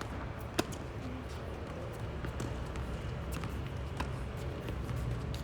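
Tennis ball knocks off racket and court: one sharp, loud knock about half a second in, then fainter knocks every second or so, over a steady low rumble.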